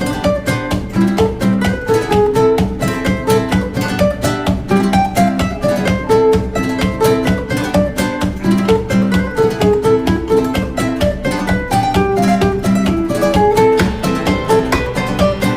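Background music: fast plucked acoustic guitar with a steady rhythm.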